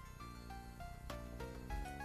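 Background music: a tune of short, quickly changing notes over a low bass, with a soft beat about once a second.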